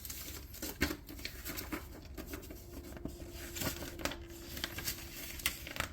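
Packaging and papers being handled: rustling and crinkling with scattered light clicks and taps as unboxed items such as the manual are moved around.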